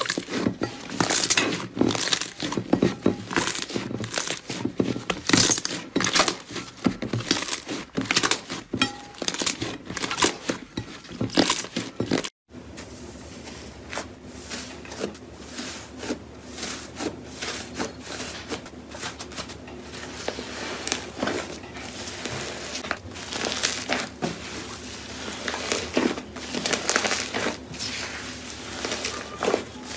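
Slime being squeezed and worked by hand, giving a rapid run of sharp crackles and pops. After a cut about twelve seconds in, the crackling goes on softer and sparser.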